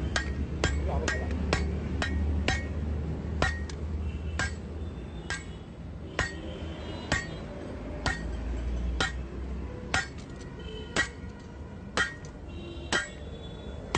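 Hammer blows on a red-hot blade blank of truck leaf-spring steel lying on an anvil, each a sharp metallic strike with a short ring. The blows come about twice a second at first and slow to about one a second.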